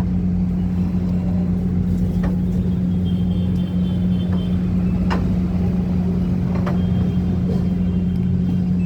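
Samsung AS243TTB air conditioner running with its compressor on: a steady low hum over a rumble of running noise, with a few faint clicks.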